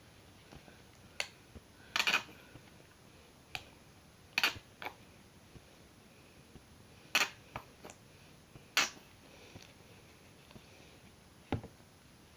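Disposable plastic gloves crinkling and crackling as hair dye is worked into hair. About ten sharp crackles and clicks come at irregular intervals, a few of them in quick clusters.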